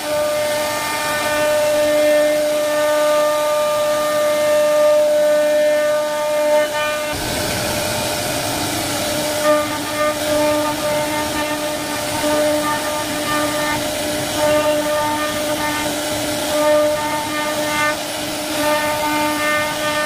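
CNC router spindle carving wood: a steady whine from the spinning cutter over a rough cutting noise. About seven seconds in, the cutting noise gets louder and the whine starts to waver in and out as the bit works through the carving.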